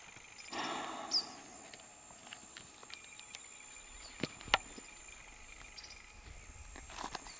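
A single short, high bird chirp about a second in, and two sharp knocks past the middle, over a faint steady high-pitched tone.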